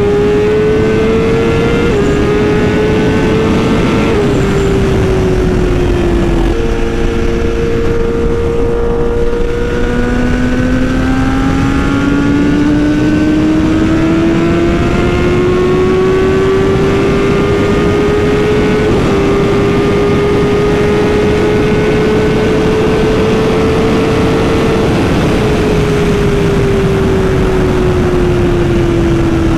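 A BMW S1000RR's inline-four engine running through an Austin Racing aftermarket exhaust while under way, over steady wind rush. It changes gear several times in the first ten seconds, with sudden steps in pitch. It then climbs slowly in pitch under steady throttle and falls away over the last few seconds as the bike slows.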